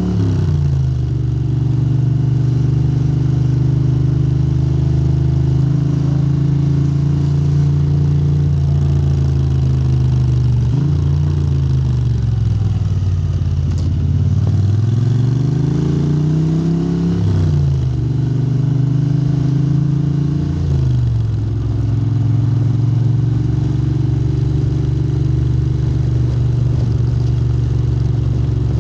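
Moto Guzzi transverse V-twin running through Lafranconi silencers, holding a steady engine speed. Near the middle the revs sag, then build up, then fall away quickly twice before it settles back to a steady run.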